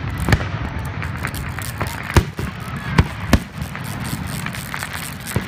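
Aerial fireworks going off overhead: a handful of sharp bangs, three of them close together in the middle and another near the end.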